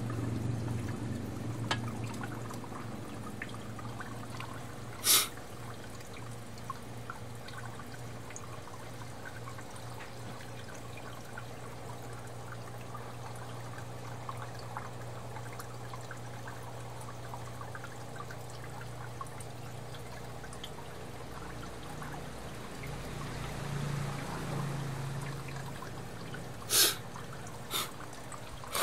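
Aquarium water trickling and pouring steadily, with a low hum underneath for most of it. A sharp click about five seconds in and two more near the end.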